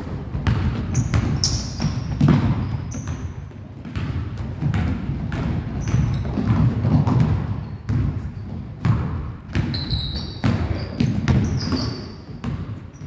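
Basketball bouncing on a hardwood gym floor, with running footsteps and several short, high sneaker squeaks, echoing in the gym.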